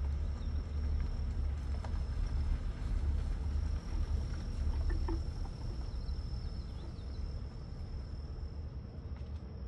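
Steady low rumble of a vehicle driving slowly over a farm track, heard from inside the cab, with a thin steady high tone above it and a few faint chirps near the middle.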